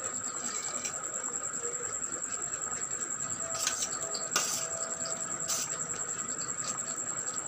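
Potato curry gravy simmering in a steel kadai, a steady bubbling hiss, with a few light knocks around the middle as fried okra pieces are dropped into the pan.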